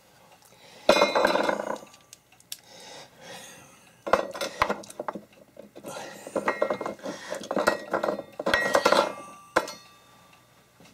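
Metal radio mounting bracket and screws clinking and rattling as the bracket is held up and screwed in with a screwdriver. The clatter comes in several spells, the loudest about a second in and again from about six to nine and a half seconds.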